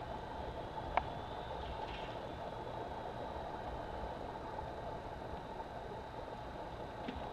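Wind blowing across the camera microphone, a steady rushing with low buffeting, with a single sharp click about a second in.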